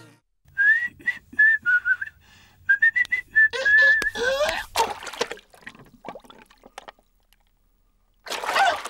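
A cartoon seal whistling a short tune in quick, high notes, ending in a couple of rising swoops. A loud, noisy burst follows near the end.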